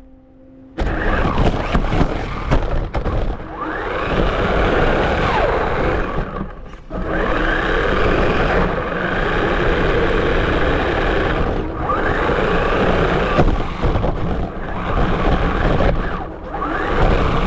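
Hobby-grade electric RC car driving on pavement, its motor whining up in pitch several times over the rush of tyres and grit close to the car.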